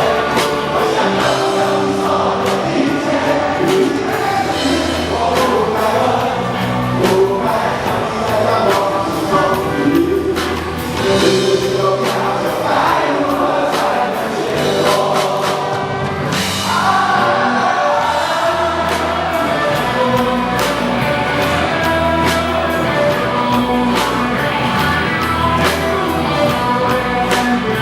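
Rock band playing a ballad with singing over it, drums keeping a steady beat.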